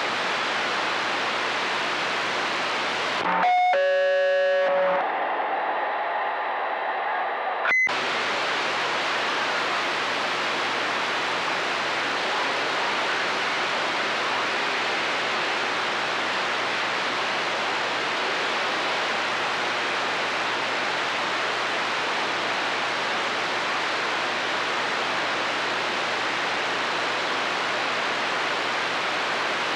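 CB radio receiver putting out steady static hiss with no one talking. About three seconds in, a transmitter keys up with a short, distorted buzzing tone that blanks the hiss for a couple of seconds, and about eight seconds in a sharp click with a brief beep marks a station unkeying before the static returns.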